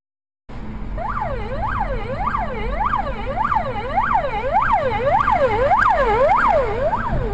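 Emergency vehicle siren in a fast yelp, its pitch sweeping up and down a little under twice a second over a low rumble of road noise; it cuts in abruptly about half a second in.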